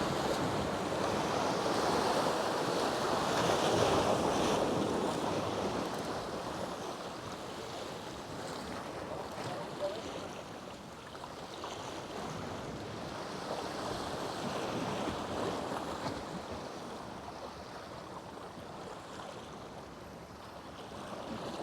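Gulf surf washing steadily, swelling and easing slowly over several seconds, with some wind on the microphone.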